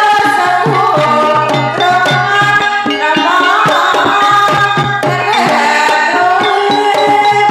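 Javanese gamelan music for a kuda kepang (jaranan) dance: a steady kendang hand-drum pattern under sustained, ringing metallophone tones, played continuously.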